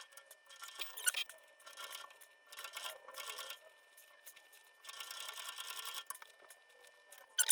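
Thread being pulled through leather while stitching a zipper back into a bag: four or five separate scratchy pulls, each about half a second to a second long.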